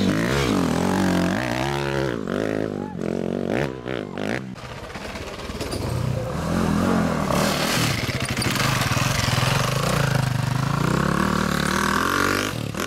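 Dirt bike engines revving hard, the pitch swinging up and down repeatedly as the throttle is worked during a hill climb. After a brief dip, an engine runs louder and steadier through the second half.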